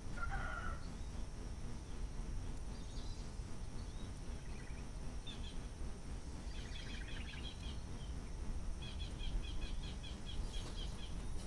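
Small birds chirping over a steady low background rumble, ending in a run of quick repeated high notes, about four a second, near the end.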